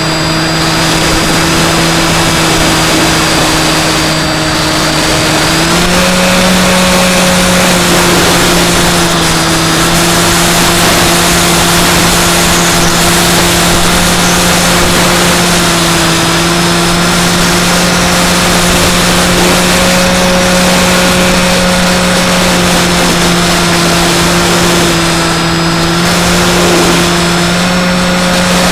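Electric motor and propeller of a Skywalker X5 flying wing heard from its onboard camera: a steady droning hum that steps up slightly in pitch about six seconds in and shifts a little with throttle a few more times, over constant wind rush.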